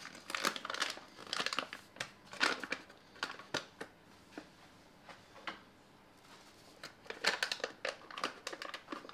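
Paper bag of self-raising flour being torn open and crinkled in the hands. It comes as bursts of crackly rustling, with a pause of a few seconds in the middle and more near the end.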